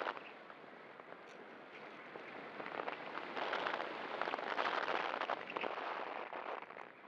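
Wind rushing and buffeting over the onboard camera's microphone of an RC glider in flight, a rough, crackly rush that swells about three seconds in and eases off near the end.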